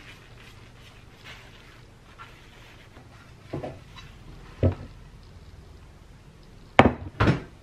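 Glass baking dish handled on a granite countertop: faint paper-towel wiping, two knocks, then two louder sharp knocks close together near the end as the dish is set down.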